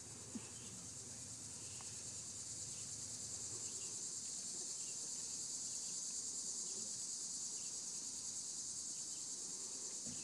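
Insects chorusing, a steady high-pitched buzz that grows a little louder over the first few seconds, with one soft tap near the start.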